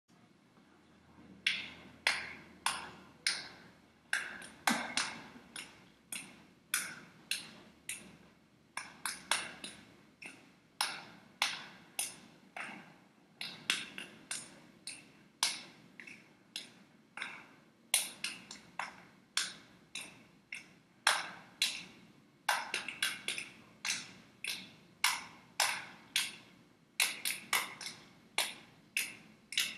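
A long series of sharp, separate taps or clicks, irregularly spaced at about one to two a second, each with a short ringing tail.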